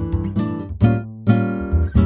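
Background music: chords strummed on an acoustic guitar, about two strokes a second.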